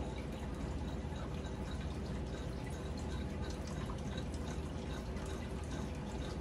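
Faint steady background of dripping, trickling water over a low hum, with small scattered drips throughout.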